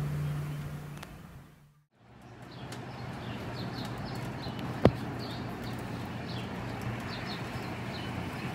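Background music fading out, then outdoor ambience: small birds chirping again and again over a steady low hum, with one sharp tap about five seconds in.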